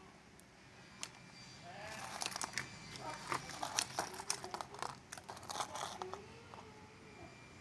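A run of sharp clicks and rattles, loudest in the middle, with faint drawn-out animal calls gliding up and down in the background.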